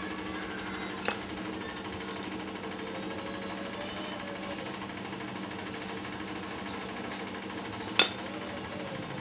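A steady mechanical hum runs throughout, with two sharp clicks: a small one about a second in and a louder one near the end.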